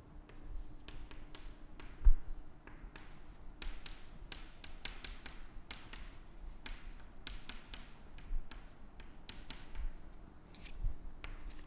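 Chalk writing on a chalkboard: quick taps and short scratches as letters are formed, with one low thump about two seconds in.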